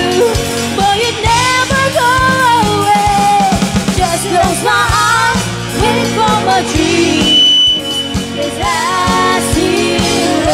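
A live band playing: women's voices sing the melody over a drum kit, bass guitar and keyboard, with a steady drum beat throughout.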